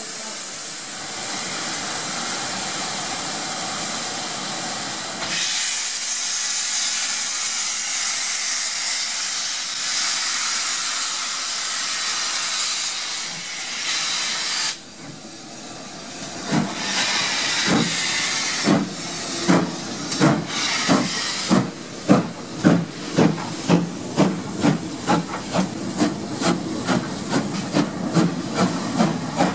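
Steam locomotive 6960 Raveningham Hall, a two-cylinder GWR Hall class 4-6-0, hissing steam loudly. About halfway through, the hiss dips and the exhaust chuffs begin, slow at first and quickening steadily as the locomotive pulls away from a standstill.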